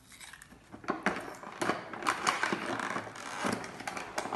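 A wrapper being opened and crinkled by hand, a lot being unwrapped for the drawing. It is an irregular run of crackles that starts about a second in and ends with one louder crackle.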